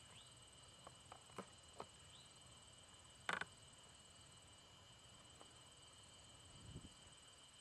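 Quiet field ambience with a steady high trill of crickets. A few soft clicks come in the first two seconds, and a short sharp sound about three seconds in.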